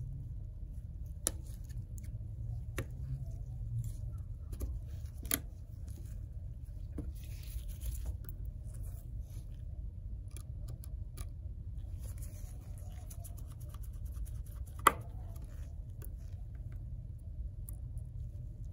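Small clicks and light scraping of tiny phone parts and a precision screwdriver working screws into an iPhone X's replacement screen, over a steady low hum. One sharper click comes about fifteen seconds in.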